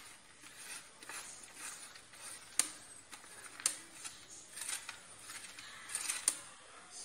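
Mozzarella being grated on a coarse stainless-steel box grater: irregular soft rasping strokes, with a few sharp clicks of the grater knocking along the way.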